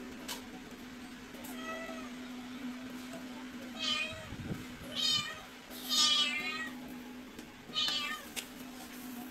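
A cat meowing: a faint meow near two seconds in, then four louder, high meows, the longest and loudest about six seconds in, over a steady low hum.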